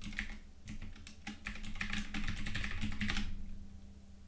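Typing on a computer keyboard: a quick run of keystrokes entering a terminal command, stopping a little over three seconds in.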